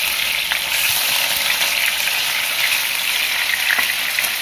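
Minced-meat cutlets frying in vegetable oil in a pan: a steady crackling sizzle, with a couple of faint clicks as a spatula turns them.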